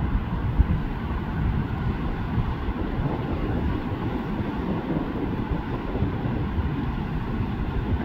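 Steady low rumble of wind buffeting the microphone, over the rush of fast river water.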